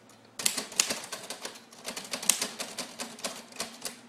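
Old typewriter's keys being struck one after another: an irregular run of sharp clacks, several a second, starting about half a second in.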